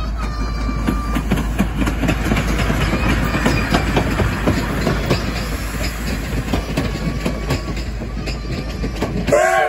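C12 66 steam tank locomotive and its passenger coaches rolling past close by, with wheels clattering over the rails in a dense, uneven run of knocks. A short, louder noise comes near the end.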